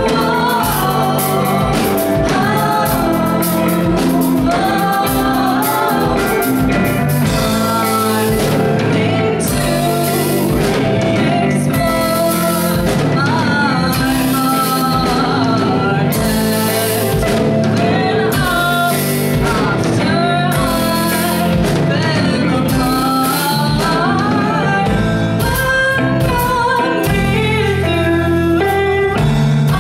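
Live band playing: a woman singing a melody over electric guitar, bass guitar and drums with a steady beat.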